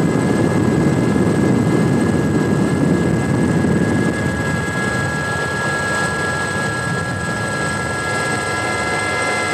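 Helicopter running: a dense low rumble with several steady high-pitched whines over it, the rumble easing slightly about four seconds in.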